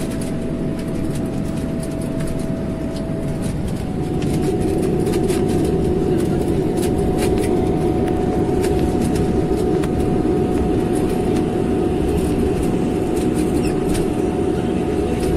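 Turboprop airliner's engines and propellers heard from inside the cabin as the plane rolls on the ground after landing: a steady loud drone with a hum whose pitch steps up and grows louder about four seconds in as power is added.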